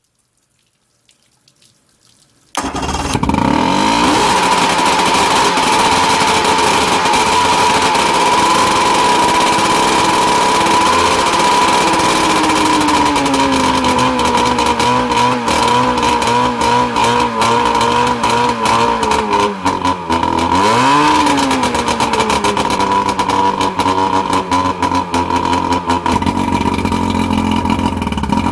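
Mercury 125 HP two-stroke outboard running on flushing ears, cutting in suddenly after a couple of seconds of near silence and then holding a loud, steady idle. Its pitch wavers, with a brief dip and rise about two-thirds of the way through.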